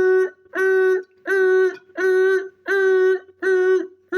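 A person's voice making a run of held, same-pitched vocal tones, about one and a half a second, each about half a second long: a vocal imitation of a construction machine for toy play.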